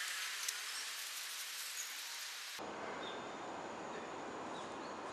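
Steady background hiss with no distinct sound event, and a faint click about half a second in. The hiss changes abruptly about two and a half seconds in, from a thin high hiss to a fuller, lower one.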